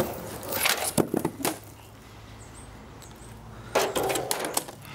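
Plexiglass cover of a solar water-heating panel cracking and snapping as it is pried and pulled off, with a few sharp cracks in the first second and a half. Near the end there is a rough scraping rustle as the sheet comes away.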